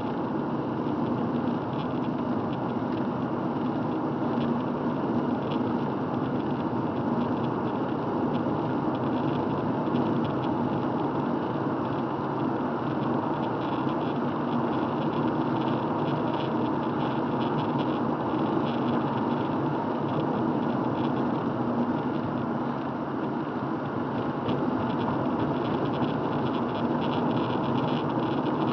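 Steady car noise heard from inside the cabin while driving on a wet road: engine and tyre hiss, with faint scattered ticks over it.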